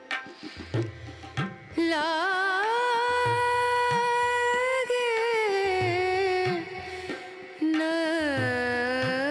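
Indian classical-style background music: a held, ornamented melody with wavering glides over regular low drum beats. The melody comes in about two seconds in, after a quieter, choppier opening.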